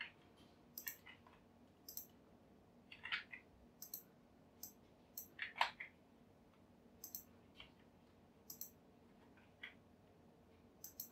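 Computer mouse clicks and keyboard key presses, about twenty short, sharp clicks spaced irregularly over a faint steady hiss.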